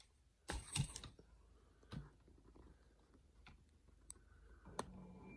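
A few soft, scattered clicks and knocks, the loudest a quick cluster about half a second in, then single ticks every second or so.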